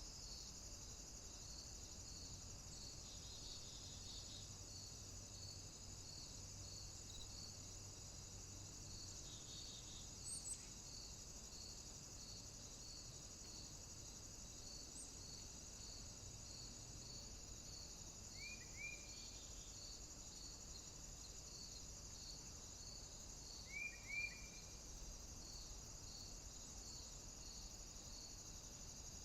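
Faint nature ambience of insects: a steady high shrill with a cricket chirping regularly, a little under twice a second. A bird gives a few brief double chirps, mostly in the second half.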